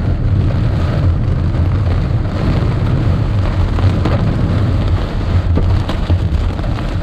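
Heavy rain pelting a moving car's roof and windscreen, heard from inside the cabin over a steady low rumble of tyres on the wet road.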